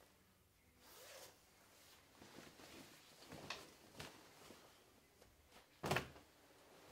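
Leather jacket being taken off: soft rustling and a few small clicks of the leather and its hardware. About six seconds in it lands on a wooden chair with one loud thump.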